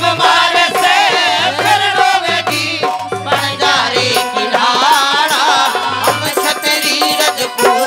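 Instrumental interlude of Haryanvi ragni folk music: a wavering, sliding melody over a steady, repeating drum beat with sharp percussive strokes.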